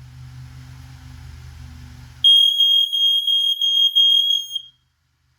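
Smoke alarms sounding on test: after a faint low hum, a loud steady high-pitched alarm tone starts suddenly about two seconds in, lasts about two and a half seconds, then stops. The interconnected alarms go off together, the sign that the interconnect is now working.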